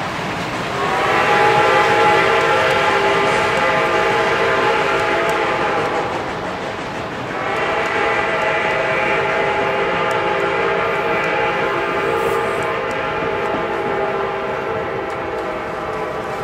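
A locomotive sounding two long, steady chime blasts, the first about five seconds long and the second about nine, over the rumble of passenger cars rolling by.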